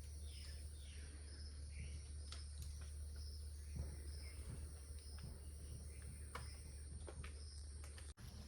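Outdoor morning ambience: small birds chirping in short falling calls, mostly in the first few seconds, over a steady high insect drone and a low rumble, with a few sharp clicks. The sound cuts out for a moment near the end.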